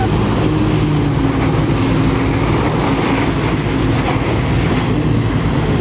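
Jet ski engine powering a flyboard, running steadily under load, its pitch shifting a little.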